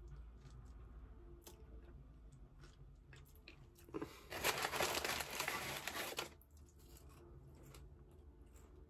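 Paper napkin rustling and crinkling for about two seconds, starting about four seconds in.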